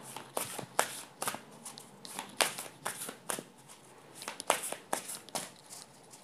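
A deck of tarot cards shuffled hand over hand: a run of quick, irregular card flicks and soft slides, about two or three a second.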